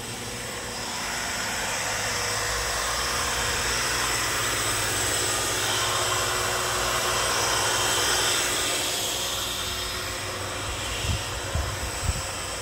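A passing vehicle: a broad rushing noise that swells over several seconds and then fades, with a few light knocks near the end.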